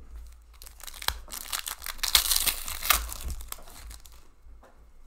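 A hockey card pack's foil wrapper being torn open and crinkled by hand: a dense crackle lasting about three and a half seconds, loudest just past the middle.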